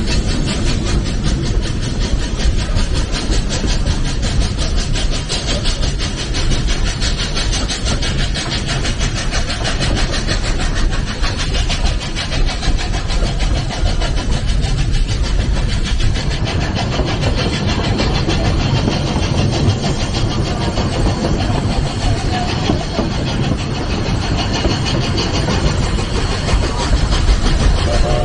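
A narrow-gauge steam train's passenger coaches running along the track, heard from an open coach window: a loud, steady rumble of wheels on rail mixed with wind on the microphone.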